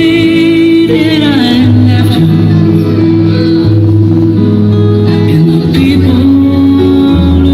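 Ballroom dance music with a singer, played loudly.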